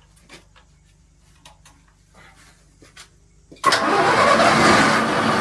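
An engine starts abruptly nearly four seconds in and then runs on loudly and steadily.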